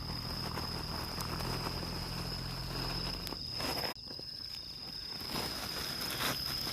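A steady, high-pitched trill from night insects, with brief noisy scuffs about halfway through and again near the end.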